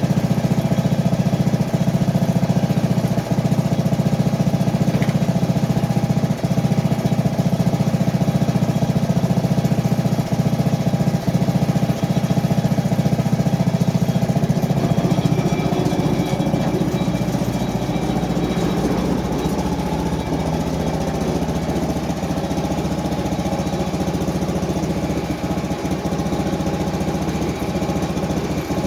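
Small engine of a Frontier OS23 portable band sawmill running steadily, easing slightly and changing note about halfway through.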